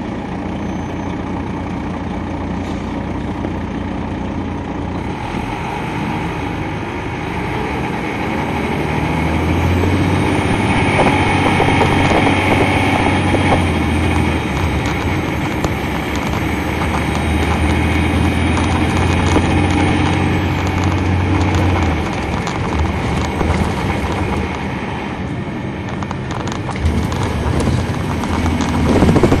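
Detroit Diesel Series 60 diesel engine of an MCI D4500 coach, heard from on board while the bus drives. The engine runs steadily, grows louder under load about a third of the way in, eases off past the middle and builds again near the end.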